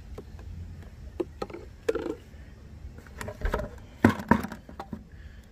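Rustling and scattered knocks as a plastic bag of small tools and a towel are handled and set down on a mat, with two sharp knocks about four seconds in.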